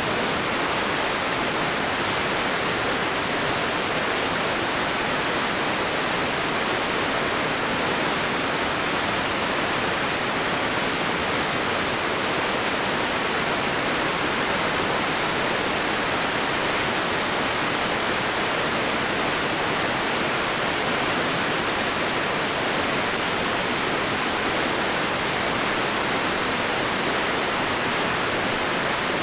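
Steady rush of fast-flowing river water tumbling over rocks, an even hiss that does not change.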